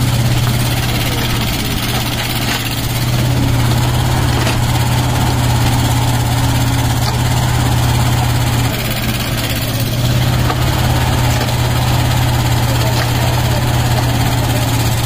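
Tata Hitachi mini excavator's diesel engine running steadily under hydraulic load as the arm digs and scoops soil. The engine note eases briefly about nine seconds in.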